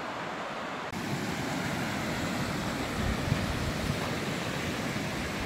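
Mountain creek rushing over rocks, a steady hiss of water. About a second in it turns louder and fuller, with an uneven low rumble of wind on the microphone.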